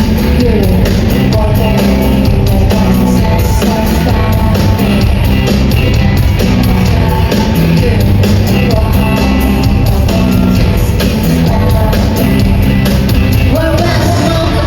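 Live pop-rock song played loudly by a band with drums and guitar, with singing over it.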